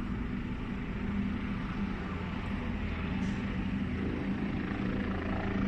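Helicopter hovering at a distance: a steady low drone of its rotor and engine with a faint regular pulsing.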